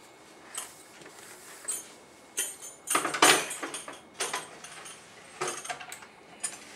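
Scattered metallic clinks and rattles of hand wrenches and a steel tool-cart drawer being handled, with a louder cluster of clanks about three seconds in.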